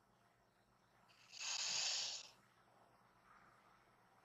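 A single breath, heard close to a microphone, lasting about a second and starting about a second in; otherwise near silence.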